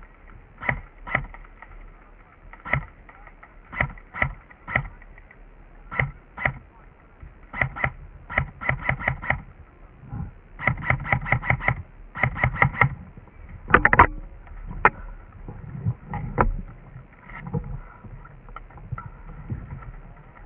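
Airsoft guns firing: single shots and quick strings of several shots a second, busiest in the middle, with a louder crack about two-thirds of the way through.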